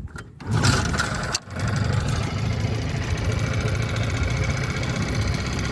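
1979 Evinrude 9.9 two-stroke outboard motor, freshly tuned up with its carburettor cleaned, starting up. It catches about half a second in, stumbles briefly near a second and a half, then settles into steady running.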